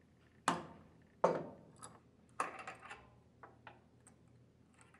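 A few light metallic clinks and knocks from a spanner wrench and the lock nut and lock washer coming off an internal gear pump's shaft. The two loudest come about half a second and a little over a second in, with smaller clicks after.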